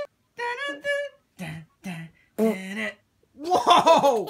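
Vocal sound effects made with the mouth during toy play: short hummed and raspy noises with pauses, then a loud cry near the end whose pitch wavers up and down.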